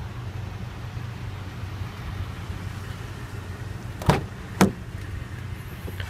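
Steady low hum, then two sharp clicks about half a second apart near the end: the Toyota Tundra CrewMax's rear door handle being pulled and the latch releasing as the door opens.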